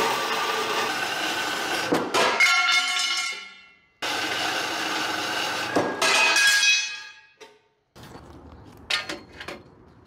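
Horizontal metal-cutting bandsaw running through steel angle iron, twice ending in a metallic clank as the cut finishes, then winding down with a fading ring. Near the end a few sharp knocks of steel angle iron being handled.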